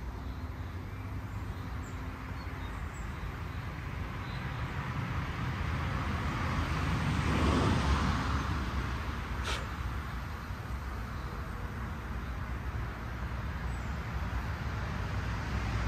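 Road traffic: a vehicle passes, its noise swelling and fading about halfway through, over a steady low rumble. A single short click comes just after the pass.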